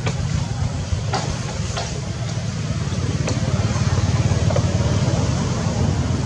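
Outdoor background noise: a steady low rumble, with a few sharp clicks in the first half.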